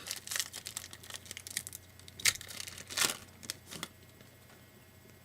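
Foil trading-card pack wrapper crinkling and tearing as it is opened, a quick run of crackles that stops about four seconds in.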